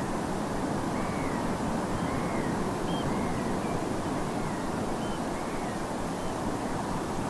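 Steady wash of distant sea surf, with faint piping calls of Eurasian oystercatchers over it, a string of short calls roughly once a second.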